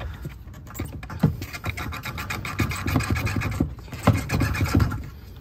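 Scraping, rubbing and small plastic clicks of hands working a cable and electrical connector free at a plastic fuel pump flange. A denser rasping scrape runs from about two seconds in until nearly the end.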